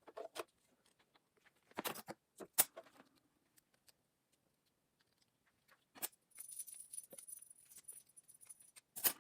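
Double-sided foam tape being peeled and pressed into place around a small cooling fan by hand: scattered clicks and taps, then a few seconds of crackling with a thin high squeal as the backing comes off, and a sharp click near the end.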